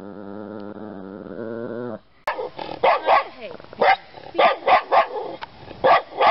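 A small dog growling steadily and menacingly for about two seconds. After a short break, a small white terrier barks repeatedly, two to three short barks a second.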